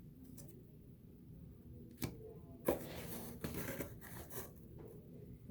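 Trading cards and foil pack wrappers being handled: a sharp click about two seconds in, then a second or two of crinkling and rustling.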